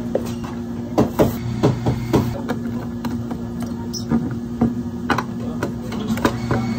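Light knocks and clacks of hard plastic as a milk carton is set down and white lids are fitted onto clear plastic blender cups on a stone counter, a dozen or so irregular taps, the loudest about a second in. A steady electrical hum runs underneath.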